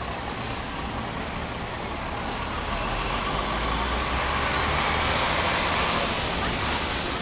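Outdoor road traffic: a steady hum of vehicles with no distinct events, its low rumble growing louder about three seconds in.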